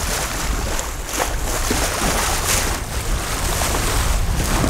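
Water rushing and splashing along the hull of a sailing yacht under way, with wind buffeting the microphone as a low rumble. The noise is steady, with a few brief louder surges.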